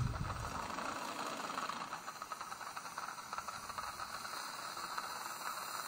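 Steady hiss from the surgical field as the implant drill, turning at 500 rpm, goes 1 mm deeper toward the maxillary sinus floor, which is not yet perforated. A brief low thump comes right at the start.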